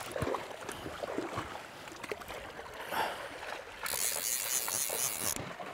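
Fast, shallow river water running over stones, with small irregular splashes and laps. About four seconds in, a high hiss comes in for about a second and a half.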